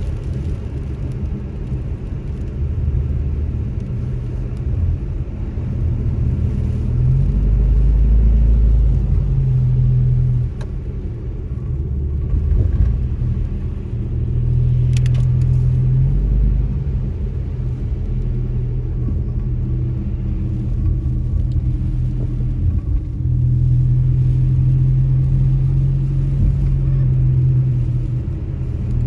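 A car driving on a snowy road: a steady low rumble of engine and tyres that swells and eases every few seconds.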